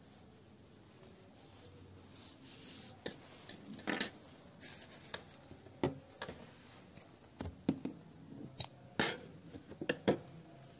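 Scissors snipping through crochet yarn to cut the working strand after finishing: a series of sharp clicks with light handling rustle, starting about three seconds in and sharpest near the end.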